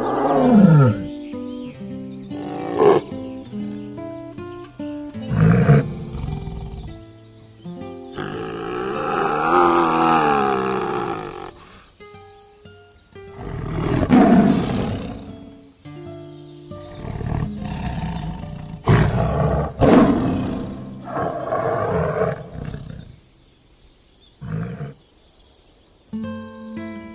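Tiger roaring and growling in a series of calls over background music, the longest call lasting about four seconds near the middle.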